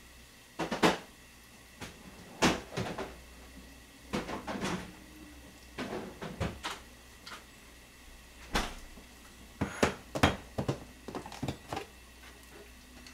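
Intermittent knocks, clacks and handling noises of kitchen containers being moved about, several sharp clacks standing out, as side dishes are got out. Near the end a plastic tub of kimchi is brought to the counter.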